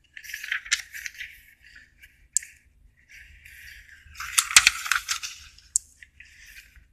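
Paper rustling as a notebook page is turned and the notebook is handled, with a few sharp clicks and taps. It is busiest about four to five seconds in.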